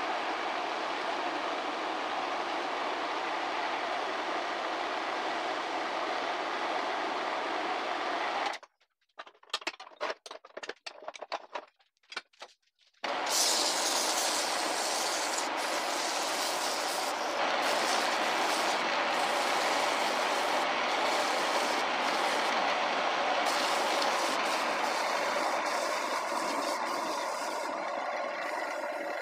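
Wood lathe running with a maçaranduba handle spinning on it, a steady mechanical noise. About eight seconds in the sound drops out for some four seconds, leaving only faint crackles. It then comes back brighter and a little louder.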